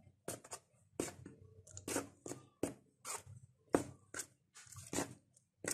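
Metal spoon stirring flour and hot water in a steel plate, scraping and clinking against the plate in short, irregular strokes, two or three a second, as the dough is mixed.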